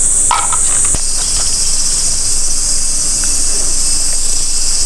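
Steady high-pitched chorus of insects shrilling, growing louder about a second in, with a brief click at that point.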